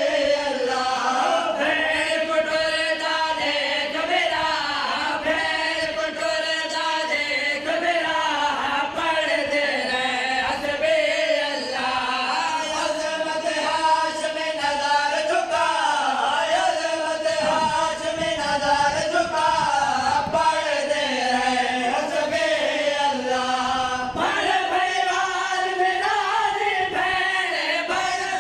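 Male reciters chanting a noha, the Shia Muharram lament, in Punjabi: a group of men's voices sings one melodic line in unbroken verse phrases.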